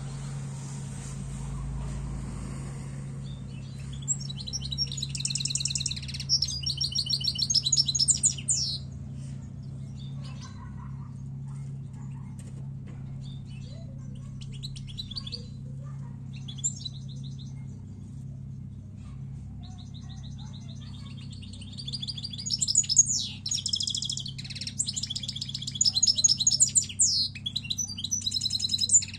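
Caged European goldfinch singing: rapid high twittering song in two long bursts, a few seconds in and again from about three-quarters of the way through, with scattered single notes between. A steady low hum runs underneath.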